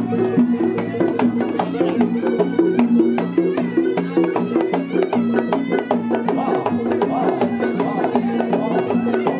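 Live Javanese traditional music: a steady repeating figure of pitched notes over brisk, regular drum and percussion strokes.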